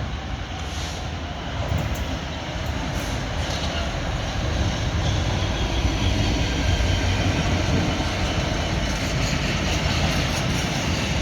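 A train passing on the railway line. Its noise grows louder over the first few seconds and then stays steady.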